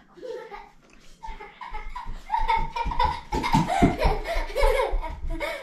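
A person laughing, starting softly about a second in and building into hearty, repeated laughter.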